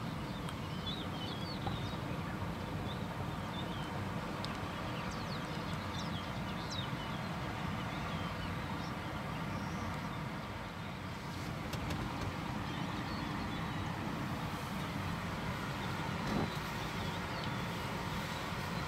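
Steady rushing of the fast-flowing, flooded Mara River, with small birds chirping in short high calls at intervals over it.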